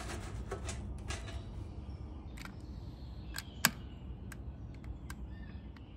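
Wood pellets rustling under a hand as paper fire starters are tucked in, then a run of separate sharp clicks from a long-reach butane lighter being triggered, the loudest about three and a half seconds in.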